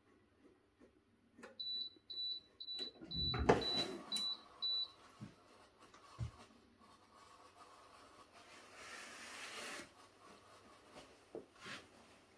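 Singer ESP260T steam press beeping, a string of short high beeps about three a second for roughly three seconds. Partway through the beeps the press lid opens with a thump and rush, the loudest sound. Later comes a couple of seconds of hissing.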